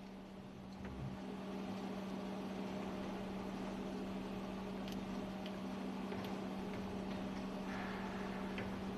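Steady machinery hum of a ship's engine room with a constant low tone. A few faint ticks, like light tool contacts, sound over it.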